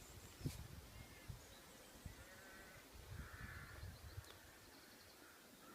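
A faint, distant sheep bleat about three seconds in, with low wind rumble on the microphone.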